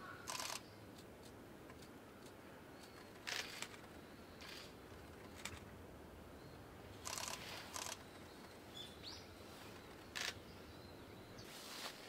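A camera shutter firing in short bursts, about six times, over a quiet background with faint, short bird chirps around three-quarters of the way in.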